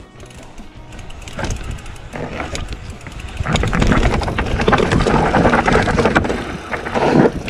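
Calibre Bossnut mountain bike descending a dirt trail: tyres rolling and crunching over dirt and roots, with the bike knocking and rattling over bumps. The noise grows louder over the first few seconds.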